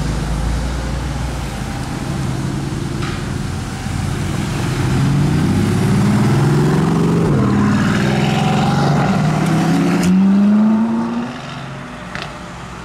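Mercedes-AMG GT R's twin-turbo V8, fitted with catless Renntech downpipes, accelerating hard through a roundabout and away, its revs climbing and dropping through several gear changes. It is loudest from about halfway in, then falls off sharply near the end as the car pulls away.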